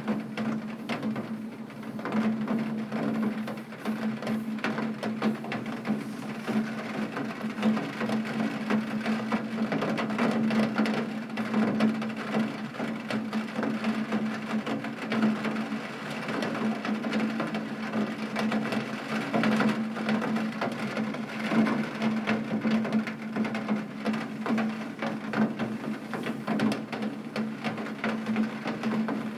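Heavy rain pattering densely on a window pane, a thick rapid patter of drops over a steady low hum.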